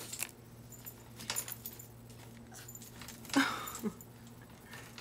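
French bulldog puppy pawing and jumping against the gate of its pen, rattling it with light clicks and jingles. About three and a half seconds in comes a short, falling whimper, then a lower second one, as it begs to be let out.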